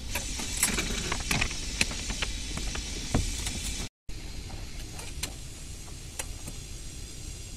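Backhoe loader's diesel engine running steadily, with scattered sharp metallic clinks and knocks from work on the hoisted excavator cabin. The sound cuts out for a split second about four seconds in.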